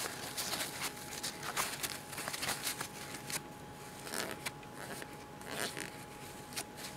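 Paper towel rubbing and scrunching over the threads of a small brass vaporizer atomizer fitting, an irregular scratchy rustle, as built-up e-liquid residue is wiped off the threads.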